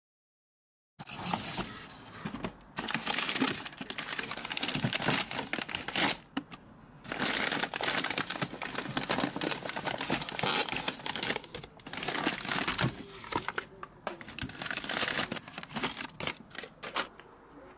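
Crinkling and rustling of something being handled, full of small crackles, starting after about a second of silence and dipping briefly about six seconds in.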